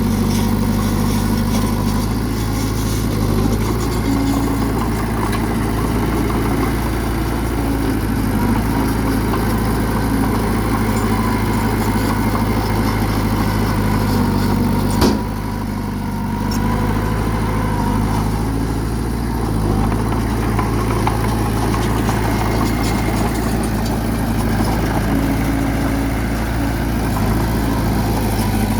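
Bulldozer's diesel engine running steadily at a low, even pitch. About halfway there is one sharp click, and the engine is a little quieter for a couple of seconds after it.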